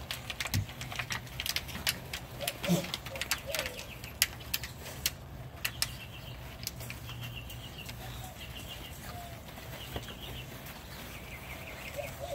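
Bulldogge puppies scuffling and play-fighting, with many sharp clicks and taps through the first half and a few brief high puppy squeaks about three seconds in. A short squeal comes again right at the end. Through the second half a bird chirps in short repeated trills.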